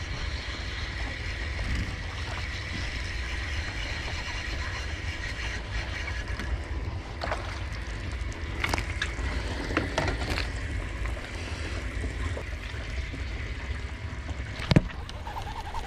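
Steady low wind rumble and water noise around a small fishing boat while a bass is played and landed, with scattered sharp clicks and knocks, the loudest near the end.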